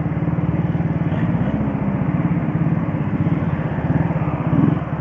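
Shineray Jet 50cc scooter engine running steadily while riding, over a broad rush of wind noise on the microphone.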